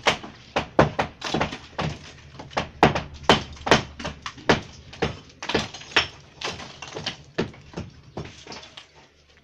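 Hammer blows striking a brick wall that is being knocked down: sharp, irregular knocks about two or three a second, some louder than others.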